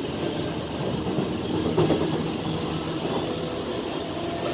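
Tokyu 8500 series electric train standing at the platform, its onboard equipment humming steadily in several low tones, with a brief louder sound about two seconds in.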